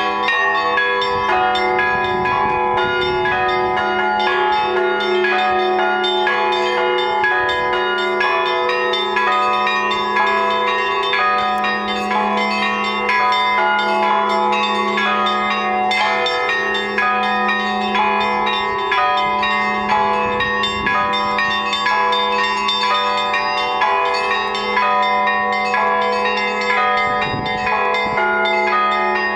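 Russian Orthodox church bells rung as a full peal (zvon) by a single bell ringer: quick, dense repeated strikes of many small and middle bells over a steady, sustained hum from a larger bell.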